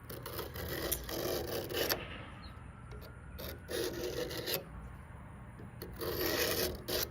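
Knife blade drawn along the rod of a Sharpal 210N Transforod guided handheld sharpener: several rasping strokes with short pauses between them, as the dull edge is worked on the rod.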